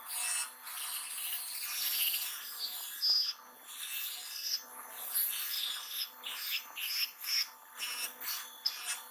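Quick back-and-forth scrubbing strokes of an abrasive worked by hand against a hard surface, faster and more clipped in the second half.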